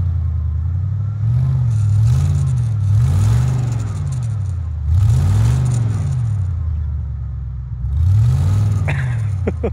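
Ford pickup truck's engine revving up and down over and over, about once a second, as it spins its wheels stuck in deep snow without getting anywhere.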